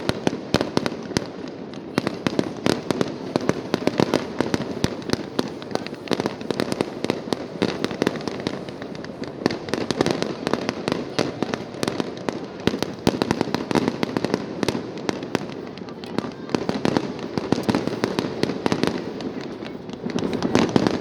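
Fireworks display: a rapid, unbroken barrage of bangs and crackles, thickening in spells, about two seconds in, around ten seconds and again near the end.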